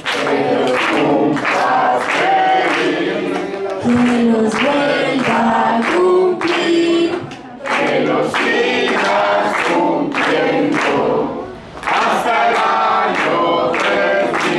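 A group of adults and children singing a birthday song together, with short pauses between phrases.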